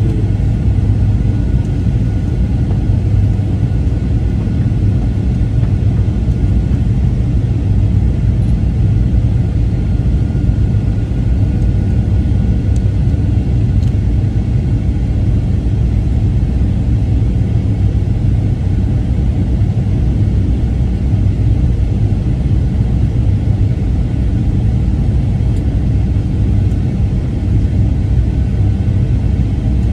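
Steady low rumble of engine and airflow noise inside a Boeing 737-900ER passenger cabin, with a faint steady whine above it.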